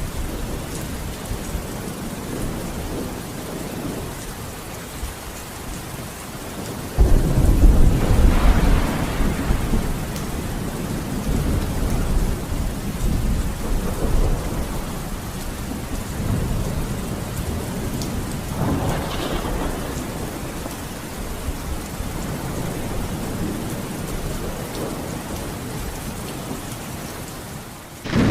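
Steady heavy rain with thunder. A loud rumble breaks in suddenly about a quarter of the way through and rolls on for several seconds, and a fainter roll follows later.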